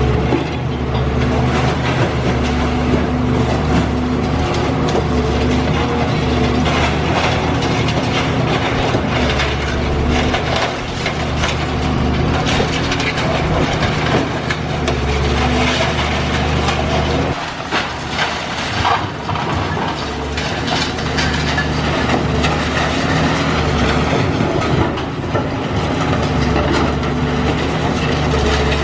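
Caterpillar high-reach demolition excavator's diesel engine running hard under load, with irregular clanking and crunching as the machine works the concrete building. The engine drops off briefly about 17 seconds in, then picks back up.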